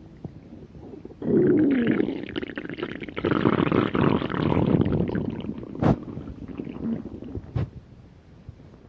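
Hungry human stomach growling: a long, loud rumble starts a little over a second in and wavers in pitch. It then breaks into gurgling that fades, with two short sharp pops near the end.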